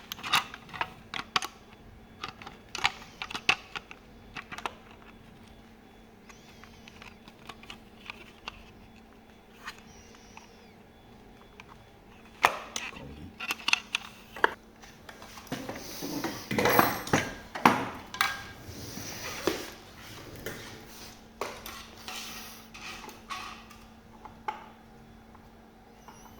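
Sharp clicks, knocks and light rattling of hard plastic and metal parts and hand tools being worked during disassembly of a rear fender, in bursts: busy clicking at the start, a quieter stretch, then a denser run of clatter and scraping through the middle and later part, over a faint steady hum.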